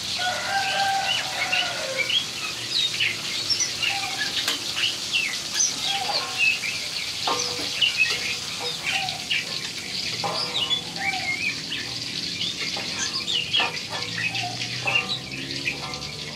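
Small birds chirping in many short, quick calls, over a steady hiss of oil sizzling in a wok.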